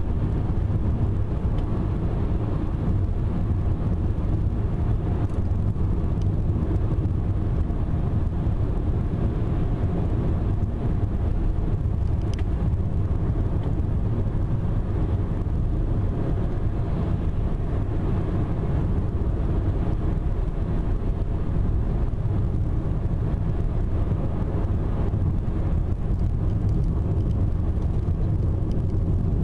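Steady road noise of a car cruising on a highway, heard from inside the cabin: an even low rumble of tyres and engine that holds level throughout.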